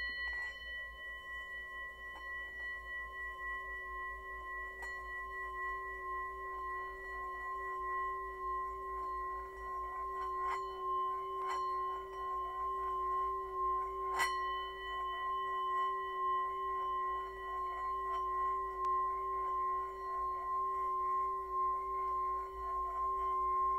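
Hammered brass singing bowl sung by circling a wooden striker around its rim: a steady ringing tone with several higher overtones, the low tone wavering, slowly swelling in loudness, with a few faint clicks partway through.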